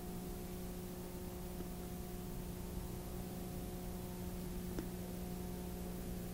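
Steady low electrical hum with a faint hiss under it, and a single faint click near the end.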